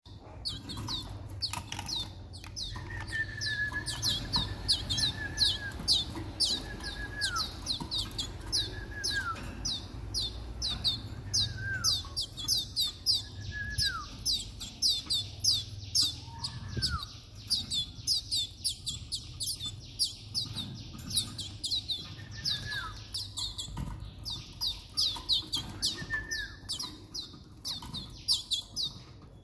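Young Timbrado canaries chirping rapidly, a fast run of short, high, falling chirps several times a second, as fledglings beg while being hand-fed soft food. A lower call that holds and then drops in pitch comes in every couple of seconds.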